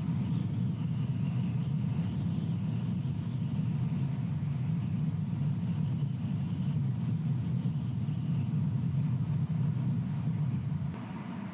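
Steady low wind rumble on the nest camera's microphone, with a faint wavering high whistle over it; it eases slightly near the end.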